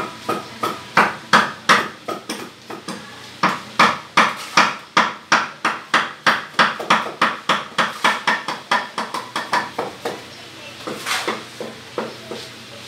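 A fast run of sharp knocks, about three a second, from someone working under a concrete sink counter; the blows grow lighter near the end and, after a short pause, a few last weaker knocks follow.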